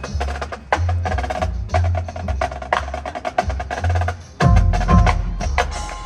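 Marching band playing a percussion-driven passage: rapid, sharp clicking strikes over low bass notes that swell and fall in blocks, with a sudden loud accent about four and a half seconds in.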